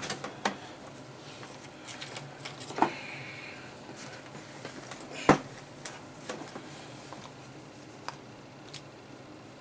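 Scattered small clicks and knocks of hands handling things on a workbench, the loudest a sharp knock about five seconds in.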